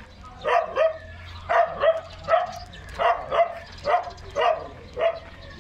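A dog barking over and over, about two barks a second, often in pairs.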